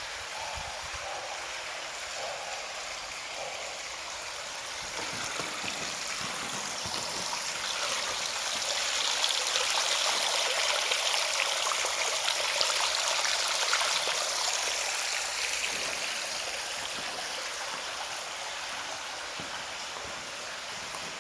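A small stream rushing and trickling over rocks: a steady flow of water that grows louder through the middle and then eases off again.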